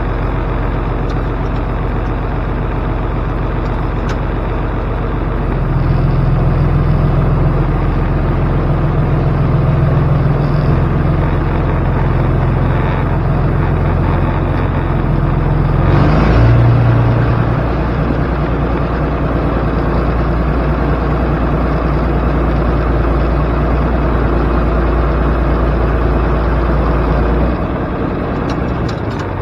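An engine running steadily throughout, its note shifting a few times: about six seconds in, again around sixteen seconds with a brief swell, and near the end.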